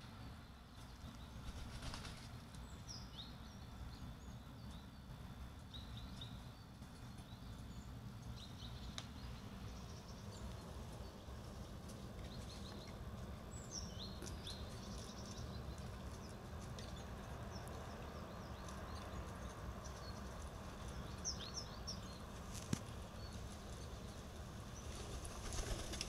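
Short high bird chirps scattered throughout over a steady low background noise. Near the end, pigeons' wings flap as they fly in.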